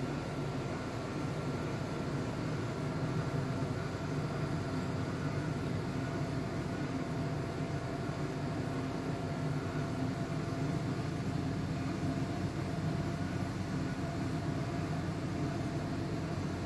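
Steady mechanical hum with a rushing noise and a few faint steady tones, unchanging throughout.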